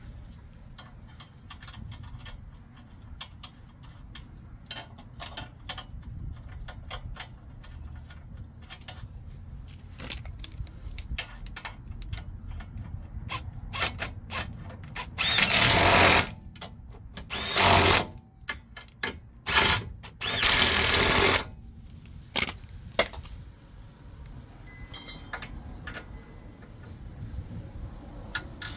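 A power tool run in four short bursts, each about half a second to a second and a half long, with light metallic clicks of tools being handled around them.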